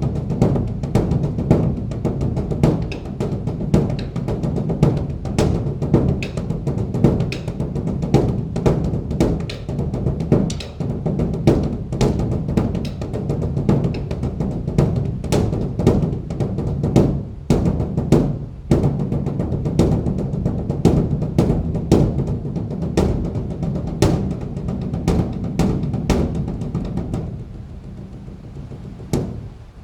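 Large Buddhist temple drum (beopgo) beaten in a fast, continuous run of deep strikes, several a second, in a shifting rhythm. The playing gets quieter and sparser near the end.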